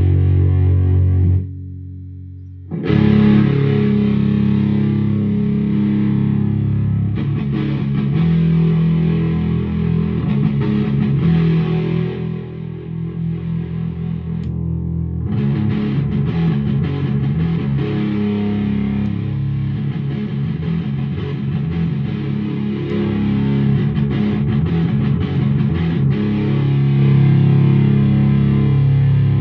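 Electric guitar played through an Evil Twin dual germanium and silicon fuzz pedal into a clean amp, giving fuzz-distorted chords and riffs. There is a brief break about two seconds in where a low note hangs before the playing picks up again.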